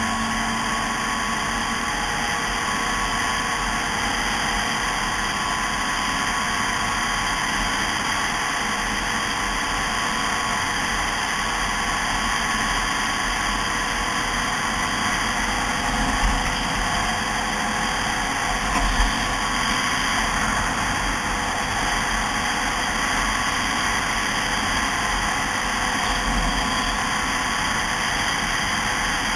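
Snowmobile engine running at a steady cruising speed along a trail, heard from on board, with a steady rush of noise over the hum. Two brief bumps in loudness come a little past the middle.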